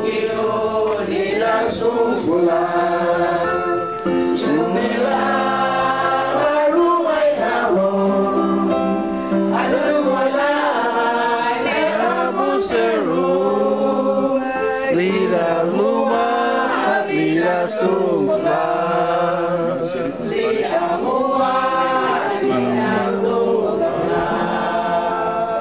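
A congregation singing a hymn together, many voices at once, with no break.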